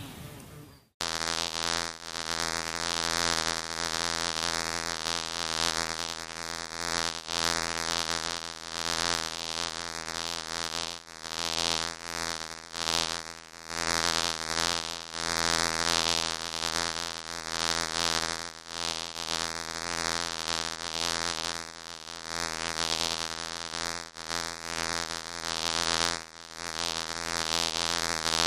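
Bees buzzing: a steady, low, many-toned drone with a hiss over it, starting about a second in and swelling and easing roughly once a second.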